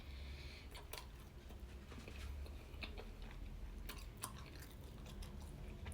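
Close-miked chewing of a soft, warm, iced pastry dough, with scattered wet mouth smacks and clicks.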